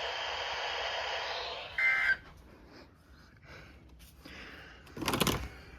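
Weather radio receiver hissing with open-carrier static after the broadcast voice ends, then a short burst of warbling two-tone digital data tones about two seconds in, typical of an EAS/SAME end-of-message signal, after which the radio falls quiet.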